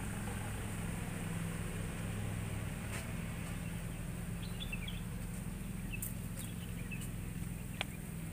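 Steady low machine hum, with a few short high bird chirps about halfway through and a few faint clicks.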